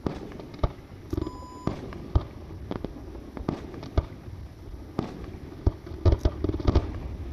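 Fireworks display: a string of sharp bangs from shells launching and bursting, at uneven intervals and coming thicker near the end.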